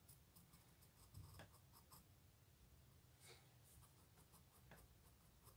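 Faint scratching of a pencil drawing on sketchbook paper, in a few short strokes.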